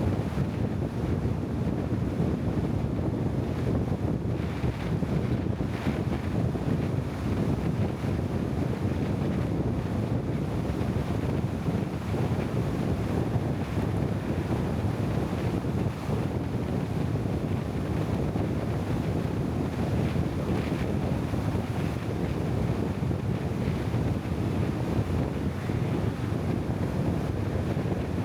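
Steady wind noise on the microphone: an even, unbroken low rumble with no separate events.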